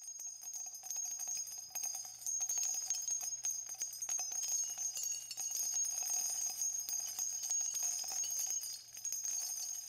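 Small bells jingling continuously, a dense quick shimmer of metallic ringing held at a steady, fairly quiet level.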